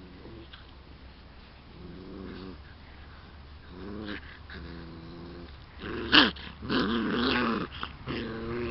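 Bullmastiff puppies growling and yapping as they play-fight, with short quieter growls early on. About six seconds in comes the loudest call, a sharp yap, followed by a run of louder growling and yapping near the end.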